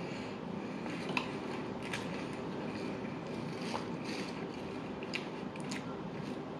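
Faint wet clicks of food being chewed, a few times, over a steady background hum.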